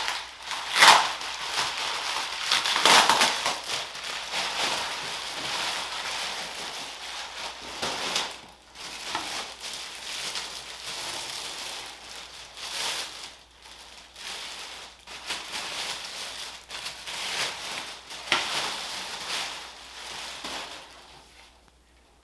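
Packaging crinkling and rustling as it is handled and pulled off a telescope's optical tube during unboxing, in several louder crackling surges. It dies down near the end.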